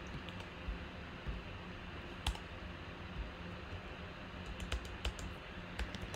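Computer keyboard being typed on: scattered, irregular key clicks, one sharper about two seconds in and a run of them near the end, over a faint steady hum.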